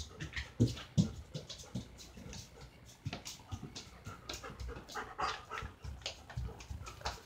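German Shepherd panting, a quick uneven run of short breaths.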